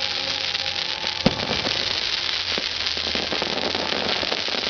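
Fireworks crackling densely and without pause, with one sharp loud bang about a second in and a few fainter pops.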